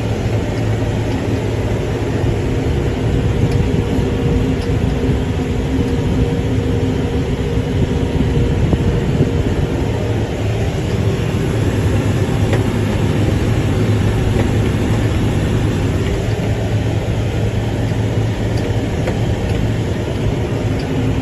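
Tractor engine running steadily under load, heard from inside the cab while it pulls a rotary hay rake across the field.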